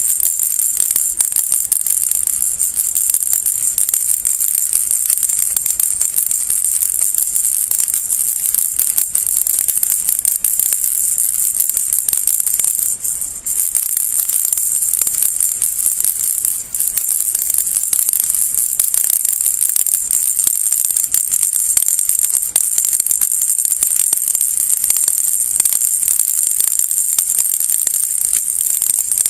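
Baby rattle shaken steadily, a dense, continuous high-pitched rattling of small beads, briefly dipping twice, about 13 and 17 seconds in.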